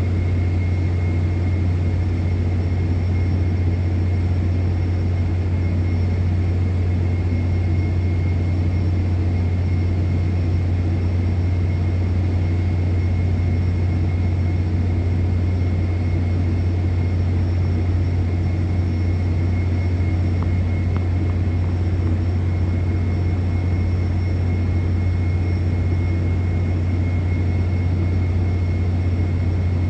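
A steady, loud low drone over a dense rumble, with a faint high whine above it, unchanging throughout.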